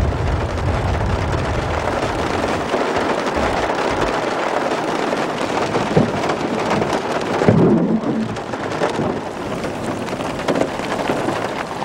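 Storm noise of steady rain and wind, with a sharp knock about six seconds in and a low rumble a second or so later.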